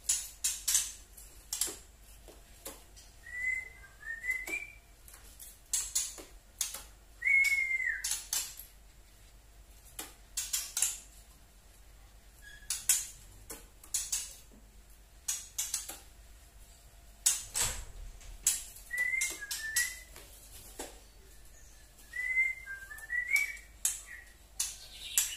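A caged songbird giving the 'tretekan' call of a trotol: sharp, irregular clicking notes, one to several a second. A few short whistled phrases come in between, four times. This is the sound played to lure a white-rumped shama into answering.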